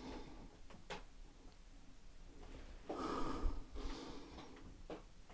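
A single breathy hiss like a sharp exhale, starting about two and a half seconds in and lasting about a second and a half, after a faint click near one second.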